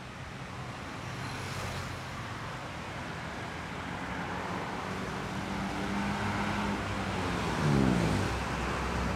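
Road traffic of motorcycles, cars and trucks, engines running steadily. About 8 s in, a vehicle passes close, the loudest moment, its engine note falling as it goes by.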